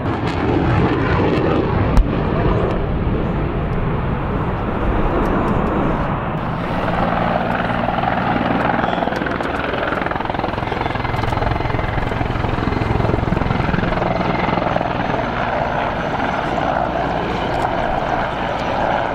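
F-16 jet fighter in afterburner for about the first six seconds, with a sharp click about two seconds in. Then a Mi-24 Hind attack helicopter flying past, its main rotor and twin turboshaft engines running steadily.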